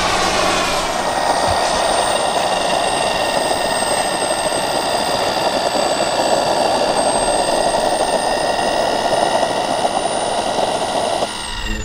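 Radio-controlled scale turboprop model aircraft running on the ground, its engine and spinning propeller giving a steady high whine over propeller noise. It cuts off abruptly just before the end.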